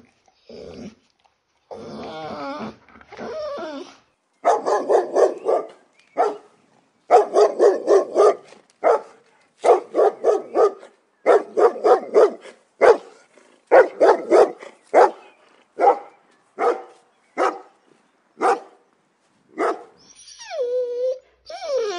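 Dog barking in quick runs of short, sharp barks, then single barks spaced further apart, ending in a drawn-out whine near the end.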